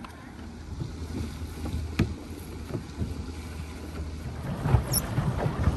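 Wind rumbling on the microphone, with a sharp knock about two seconds in. Near the end come heavier bumps and knocks as children climb into a plastic pedal boat at a wooden dock.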